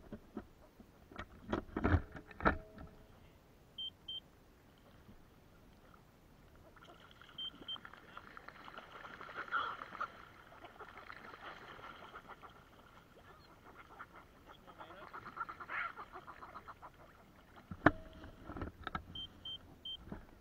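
Knocks and clatter of a fish and fishing tackle being handled against a plastic kayak, loudest about two seconds in and again near the end. In between comes a long stretch of rapid rasping and splashing as northern fulmars scramble on the water right beside the boat.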